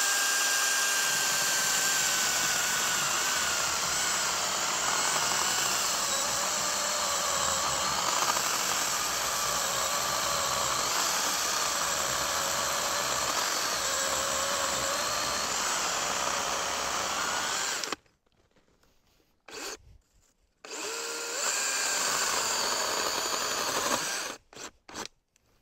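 DeWalt battery-powered chainsaw with a new chain cutting through a log. The motor's whine dips and wavers as the chain bites, then stops about 18 seconds in. After a couple of short blips of the trigger it runs again for about three seconds and ends in a few quick blips.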